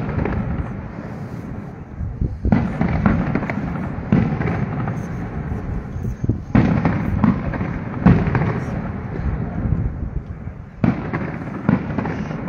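Aerial fireworks shells bursting: sudden loud bangs about two and a half seconds in, midway, and again near the end, with more bangs between. Each is followed by a long rumbling tail that slowly dies away.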